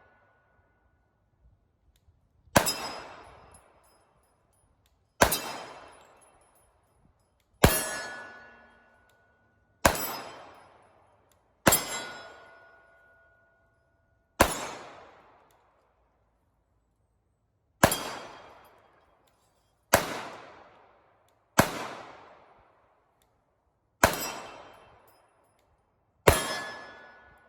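Glock 21 Gen 4 .45 ACP pistol fired about eleven times at a slow, deliberate pace, roughly one shot every two seconds. Several shots are followed by the brief ring of AR500 steel targets being hit.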